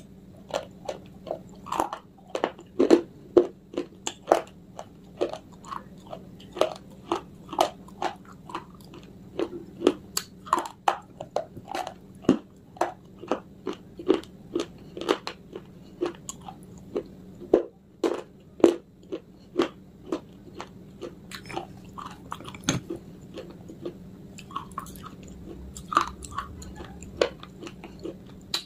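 Close-miked crunching and chewing of dry baked clay discs (edible Punjabi clay, "Punjab ki mitti"): sharp, brittle crunches about two a second as pieces are bitten off and ground between the teeth.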